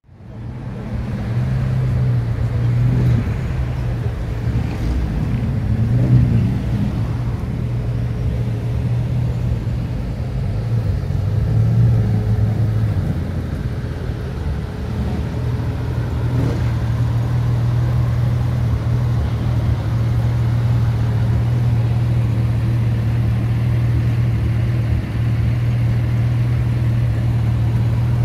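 Porsche 911 GT3 RS flat-six idling steadily, with a few slight swells in the first half.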